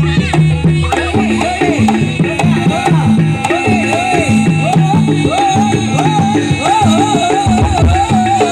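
Live Javanese gamelan music for a barongan dance, with drum strokes and sustained gong-like notes under a wavering, bending high melody.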